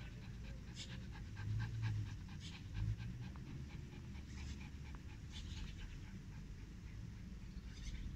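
A dog panting close by, quick, even breaths about four or five a second, with a couple of low bumps about two and three seconds in.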